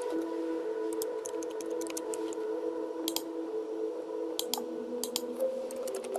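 Soft background music of held, slowly changing tones, with scattered short clicks in small clusters.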